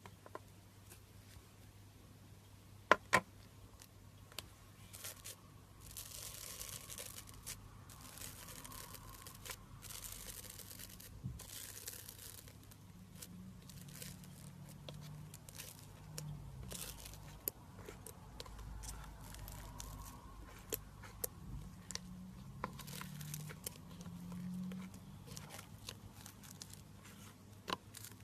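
Slime being squeezed and stretched by hand: soft crackling and sticky tearing sounds, with scattered sharp clicks and pops, two louder snaps about three seconds in.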